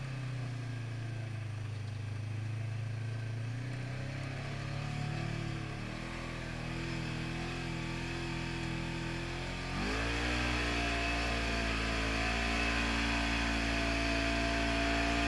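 Polaris RZR 900 side-by-side's 875 cc twin-cylinder engine pulling under throttle, heard from the driver's seat. Its pitch steps up about six seconds in, then rises sharply and gets louder near ten seconds in and holds steady at the higher speed.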